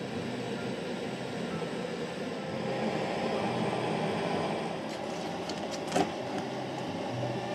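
Steady rushing noise with a few light ticks and one sharp knock about six seconds in, as a knife cuts a whole salmon on a metal truck bed.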